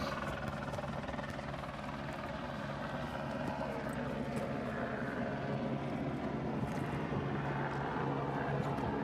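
Helicopter running, a steady engine and rotor noise with a constant low hum.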